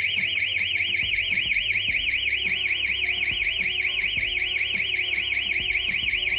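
Dinsafer smart alarm system's siren sounding a fast, loud warble, rising and falling about seven times a second. It is the SOS alarm, set off by opening a door/window contact sensor while the system is armed.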